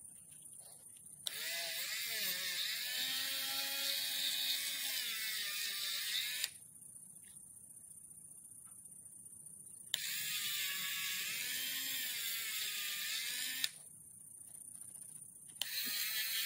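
Dremel rotary tool with a worn-down fine sanding drum running in three bursts. Its whine wavers in pitch while it polishes the copper guard to a smooth, shiny finish.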